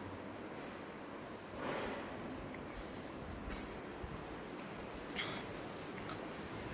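Insects chirping: a high, pulsing call repeating a little more than once a second over a steady high tone, with a faint scuff about two seconds in.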